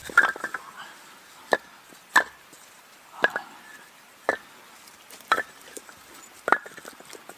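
Short cut log sections clattering down in a heap, then set one at a time onto a stacked log pile: sharp wood-on-wood knocks about once a second.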